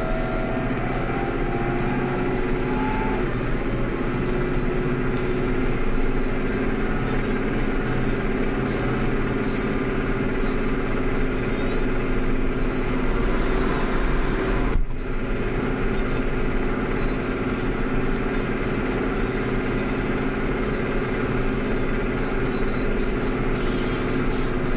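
Claas Axos 340 CX tractor's diesel engine running steadily while driving, heard from inside the cab, with a momentary drop-out in the sound about fifteen seconds in.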